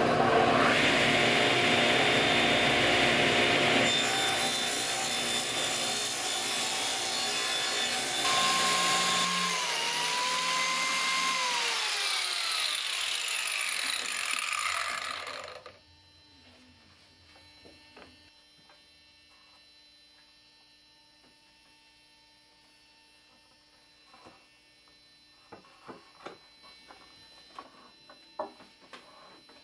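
Craftsman radial arm saw running and cutting wood, then switched off, its motor whine falling in pitch for several seconds as the blade spins down. Near the end, a few light clicks and knocks as pipe clamps are tightened on a glued-up board panel.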